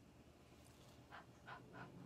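Near silence: room tone, with three faint short sounds in the second half.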